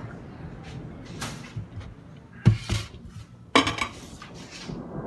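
Kitchenware clinking and knocking: a few sharp knocks, the loudest about two and a half and three and a half seconds in, the second ringing briefly.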